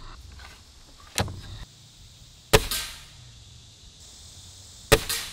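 Gamo .177 air rifle firing: three sharp cracks, about a second in, in the middle and near the end, each with a short tail. The middle shot is the loudest.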